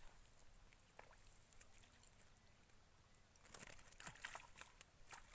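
Faint splashing and dripping of water as hands dip and move in shallow canal water, with a cluster of small splashes about three and a half seconds in; otherwise near silence.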